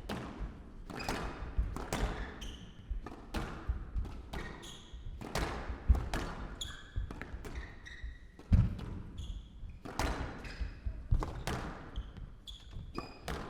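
Squash rally: the ball cracks off the rackets and the walls in quick succession, with short high squeaks of court shoes between shots. The hardest hits come about six seconds in and just past eight seconds.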